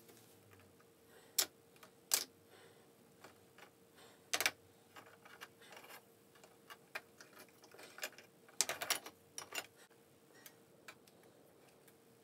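Scattered light clicks and taps of wooden strips and small tools being handled against a wooden model ship's hull, with a quick run of several clicks about three-quarters through. A faint steady hum runs underneath.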